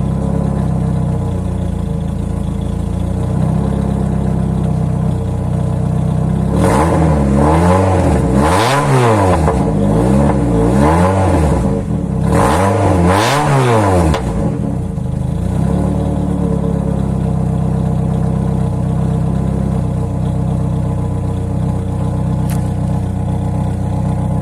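Renault 19 16V's 1.8-litre sixteen-valve four-cylinder idling through a home-made all-steel exhaust with a hollowed-out straight-through silencer. About a third of the way in it is revved hard about four times, rising and falling, then settles back to idle. A single sharp pop from the exhaust comes near the end.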